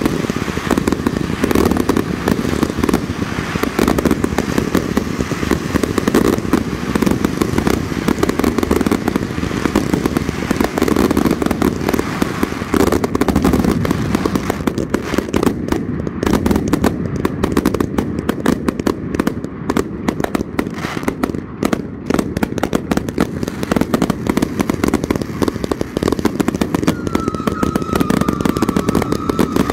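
Firework cakes firing together in a finale barrage: a dense, unbroken rapid run of bangs and crackle. A high, slightly wavering tone comes in near the end.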